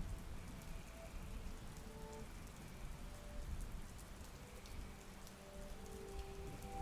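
Steady rain falling, a rain ambience, with a few faint held notes here and there.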